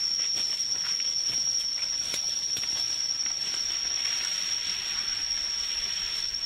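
Forest insects droning steadily on one high pitch, with a hiss beneath, and a few faint light snaps or rustles in the undergrowth.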